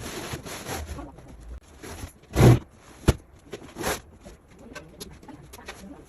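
Rubbing and scraping from objects being handled, with a heavy knock about two and a half seconds in, a sharp click just after, and another scrape near four seconds.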